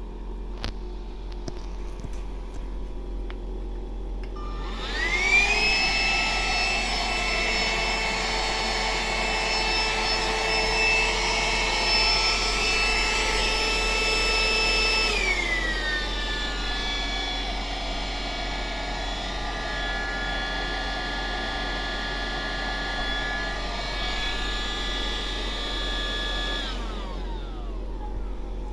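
Panasonic MC-BU110J cordless vacuum cleaner's motor switched on after a few handling clicks, whining up to speed and running steadily at a high pitch. About 15 seconds in the whine drops to a lower steady pitch, and near the end it is switched off and winds down.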